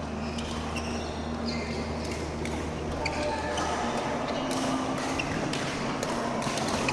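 Badminton rally: sharp racket-on-shuttlecock hits at irregular intervals and short squeaks of shoes on the court, over a steady low hum that stops about four seconds in.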